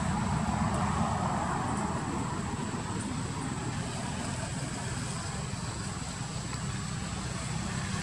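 Steady outdoor background noise: a low rumble with a hiss over it, a little louder in the first couple of seconds, and no monkey calls.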